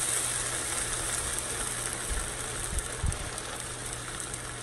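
Water poured into a hot skillet of browned long-grain rice, sizzling and hissing as it hits the pan, and dying down gradually. A couple of faint low knocks come about two and three seconds in.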